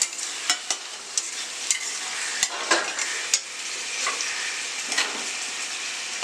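Flat metal spatula stirring a simmering curry in a stainless steel kadai, with irregular clinks and scrapes of metal on the pan over a steady sizzle of the gravy.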